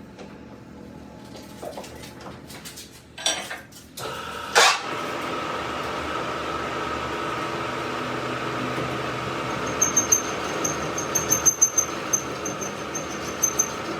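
Metal knocks and a sharp clank, then about four seconds in a workshop machine starts and runs steadily with a constant tone over a hiss; faint irregular ticking joins it near the end.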